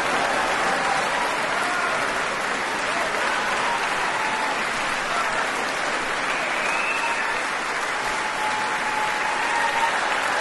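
Concert hall audience applauding steadily at the end of a symphony performance, a dense, even clapping that does not let up.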